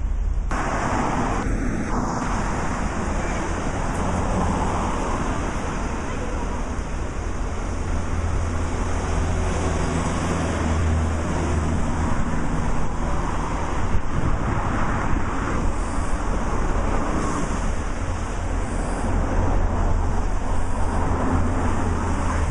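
Wind rumbling on the microphone over the steady hiss of passing road traffic.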